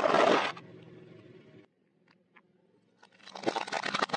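A car tyre rolling over and crushing small plastic objects: a loud burst of crunching and cracking at the start, then after a near-silent gap a second run of sharp crackling snaps from about three seconds in.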